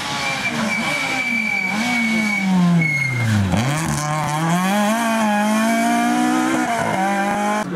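Rally car engine on the approach, its note falling steeply as it slows into the bend. It then accelerates hard away, the revs climbing and dropping once at a gear change. A thin high whine runs over the approach.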